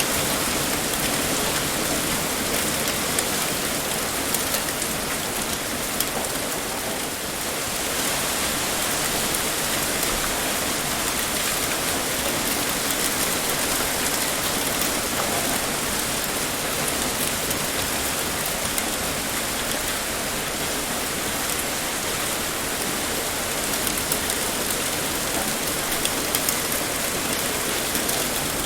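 Heavy rain pouring steadily, a dense even hiss with scattered drop ticks, easing slightly for a moment about seven seconds in.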